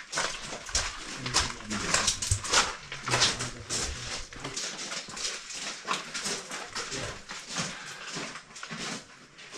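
Footsteps crunching on a gravel tunnel floor at a walking pace, about two steps a second, with some low rumble during the first half.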